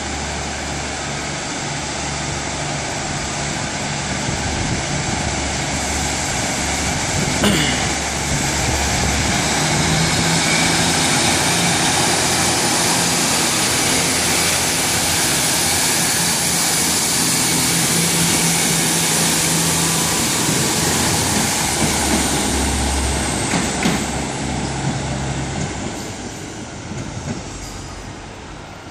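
Three-coach GWR diesel multiple unit pulling out of the station under power and passing close by: the underfloor diesel engines work hard with a thin high whine over them. It is loudest as the train goes past, about a third of the way in, and fades as it pulls away near the end.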